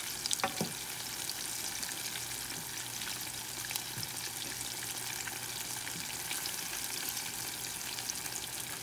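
Ripe plantain slices deep-frying in oil in a saucepan: a steady sizzle with fine crackling. About half a second in, the fork turning the slices scrapes briefly against the pan.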